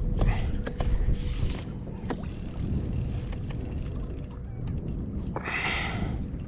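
Noise from on board a small fishing boat: a steady low rumble with scattered small clicks and knocks, and two short hissing bursts, one about a second in and one near the end.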